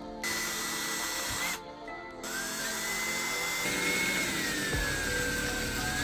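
Small handheld power tool running at high speed with a high whine whose pitch sags and rises as it works the part. It stops briefly about a second and a half in, then starts again.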